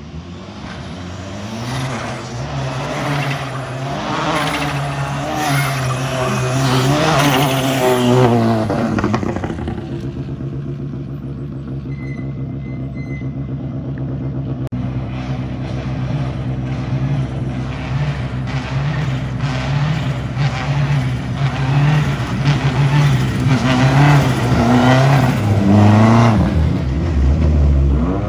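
Rally car engines. First a car accelerates hard, its revs climbing and dropping through gear changes as it grows louder, then dies away about ten seconds in. After that, rally cars run at low revs, with the throttle blipped and the revs swooping up and down near the end.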